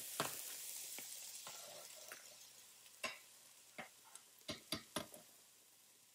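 Farfalle boiling in a stainless stockpot, stirred with a metal slotted skimmer: a faint bubbling hiss that fades away, with light metallic clinks of the skimmer against the pot, several in quick succession near the end.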